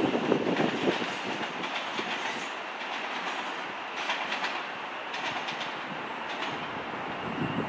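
Thameslink Class 700 electric multiple unit running along the line. Its wheels give a run of clicks over rail joints and pointwork from about four to six seconds in.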